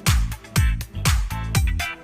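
Upbeat electronic dance music with a steady four-on-the-floor kick drum, about two beats a second.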